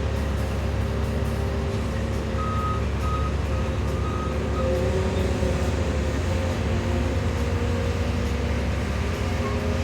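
Diesel engine of a compact track loader running steadily under work, with a reverse alarm beeping five times about two seconds in.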